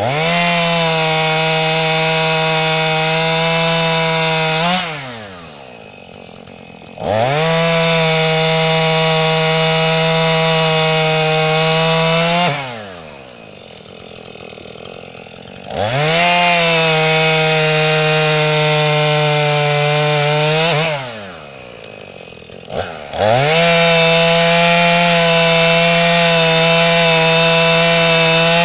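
Two-stroke chainsaw bucking an oak log into blocks: four cuts, each about five seconds at steady full throttle. Between cuts the saw drops back to idle for two or three seconds, then revs quickly up again.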